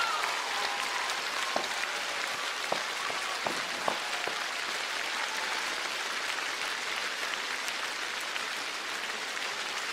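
Large concert-hall audience applauding: a dense, even patter of many hands clapping. A few sharper clicks stand out in the first four seconds.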